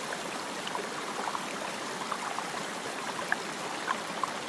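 Shallow, clear river running over stones and gravel: a steady rush of water with many small bubbling plinks.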